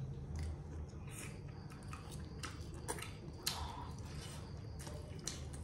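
Scattered light clicks and soft knocks of food and utensils being handled in a kitchen, the clearest about three and a half seconds in, over a low steady hum.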